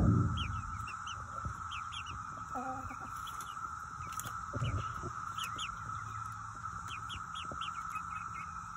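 Young chickens clucking softly, with a brief call about two and a half seconds in, among repeated short high chirps over a steady high-pitched hum. It opens on a thud that quickly fades.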